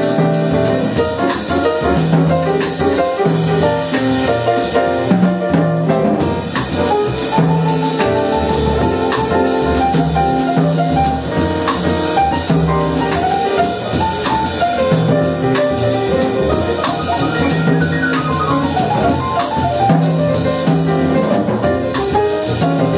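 Jazz piano trio playing: acoustic grand piano, pizzicato upright double bass and a drum kit with cymbals keeping time.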